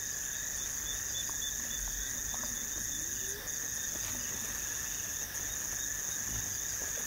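Night chorus of crickets trilling steadily, one high-pitched trill dominant and breaking off briefly a couple of times.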